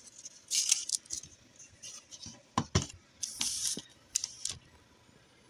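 Handling noise as a printed thermal label strip is moved about among the printer's packaging: short bursts of rustling, with two sharp knocks in the middle.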